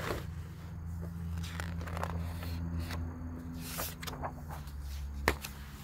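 Pages of a picture book being turned and handled: soft paper rustles, with a sharp tap about five seconds in, over a steady low hum.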